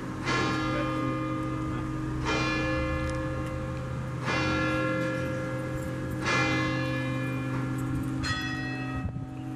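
A large bell tolling, struck five times about two seconds apart; each stroke rings on over a steady low hum that carries through between strokes.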